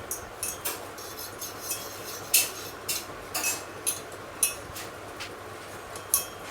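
Utensils clinking and tapping against dishes: about fifteen irregular light clinks, some with a short metallic ring.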